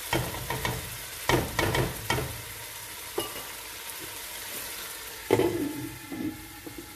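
Chicken pieces in oily masala sizzling in a pan on medium heat. In the first two seconds a utensil stirs them, with several sharp scrapes and knocks against the pan. About five seconds in, a glass pan lid clatters as it is handled.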